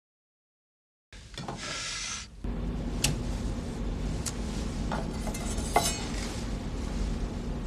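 Kitchen sound effects: a brief sizzling hiss, then a steady low hum with a few sharp clinks and taps of utensils.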